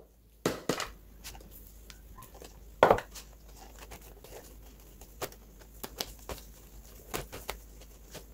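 Hands pressing and patting damp juicer pulp mixed with flax and chia seeds onto a non-stick dehydrator sheet: scattered soft taps and crackles, with one sharper knock about three seconds in.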